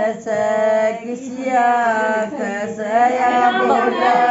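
Women singing a traditional Hindi wedding folk song for the tel (oil) ritual, unaccompanied, in long drawn-out notes.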